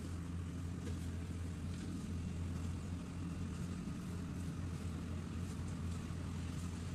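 Rice combine harvester's diesel engine running steadily while reaping, a low even drone.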